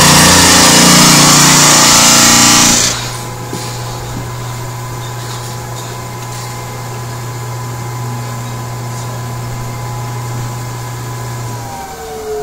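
Clarke EZ-8 electric drum sander sanding worn plywood, loud for about three seconds. Then the drum is lifted off the wood and the motor runs on much quieter as a steady hum with a thin whine. Near the end the motor cuts off.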